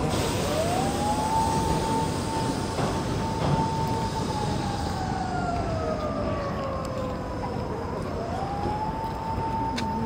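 Ambulance siren wailing slowly. It rises to a high note, holds it for a few seconds, slides down slowly, then rises again and holds near the end, over a steady hum of city traffic.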